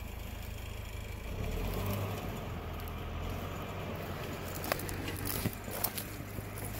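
A crawler dozer's diesel engine running steadily as a low drone. A few sharp snaps and crunches come near the end, the sound of footsteps in dry brush.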